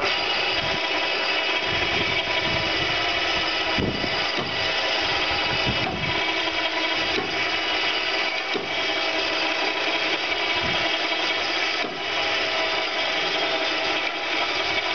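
Powered winch running steadily under load as it hauls a boat on its trailer down a launch ramp by cable: a steady mechanical whine of several pitched tones that starts abruptly, with a few soft knocks and a brief dip about twelve seconds in.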